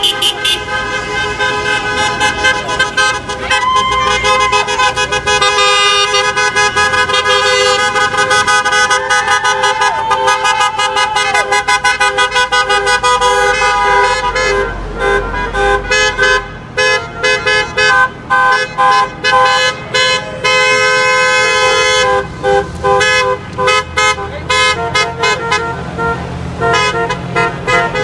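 Car horns honking from passing cars, several sounding together in long held blasts, then in rapid short repeated toots over the second half.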